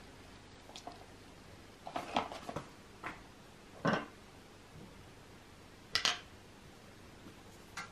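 Scattered clicks and light knocks of small plastic clothing name stamps being handled on a tabletop, a cap pulled off and parts set down. The loudest knock comes about four seconds in, with a quick double click about two seconds later.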